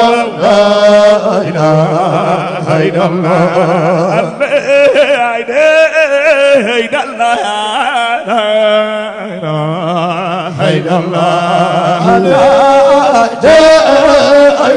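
A man chanting a Sufi zikr into a microphone: a solo voice in long, wavering, ornamented melodic phrases, with brief breaks between them.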